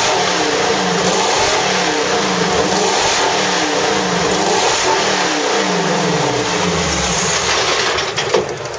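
Mercedes-Benz W196 Grand Prix car's 2.5-litre straight-eight engine being warmed up, its throttle blipped over and over so the revs rise and fall about once a second. Near the end the revs fall away.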